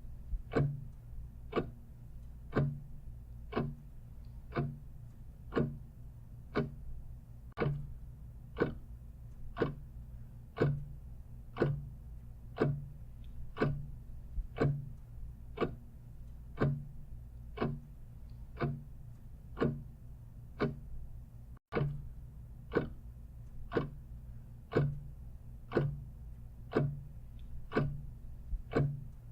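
Clock ticking steadily and evenly, over a faint low hum, with a very brief dropout about two-thirds of the way through.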